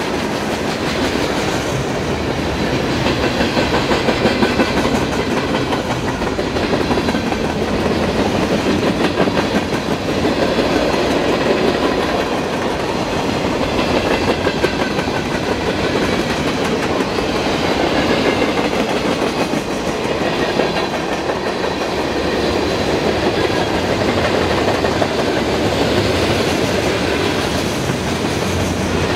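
Freight train cars (boxcars, gondolas and tank cars) rolling past close by: a steady noise of steel wheels on the rails with a fast run of clicks over the rail joints.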